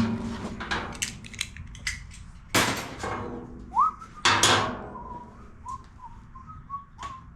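Hands and tools working over a small engine's parts: scattered clicks and knocks, with louder clatters about two and a half and four and a half seconds in. A short rising whistle-like tone follows the second clatter, then a few faint brief tones.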